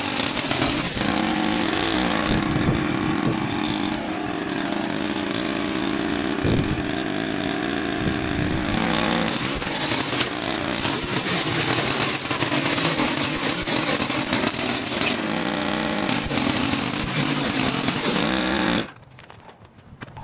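Small engine of a gas-powered yard tool running steadily under load, then cutting off sharply near the end.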